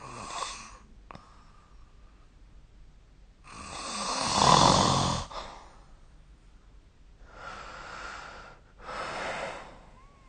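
A sleeping person snoring: one loud snore about four seconds in, lasting under two seconds, with a short breath at the start and two softer breaths near the end.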